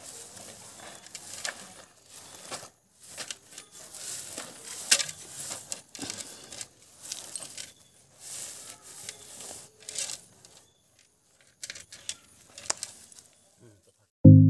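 Hands scraping and patting gritty soil and dry wood shavings around an upturned clay pot on the ground, making an uneven scratchy rustle with small clicks. Loud music starts right at the end.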